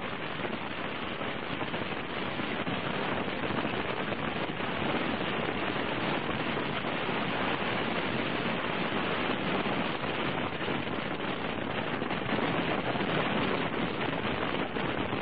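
Wind and road noise on the microphone of a camera riding on a moving motorcycle on a wet road: a dense crackling rush that grows a little louder about five seconds in.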